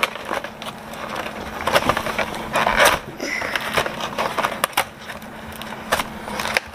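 A cardboard advent calendar door being pushed and torn open and the box handled: scattered crackling, rustling and sharp little clicks.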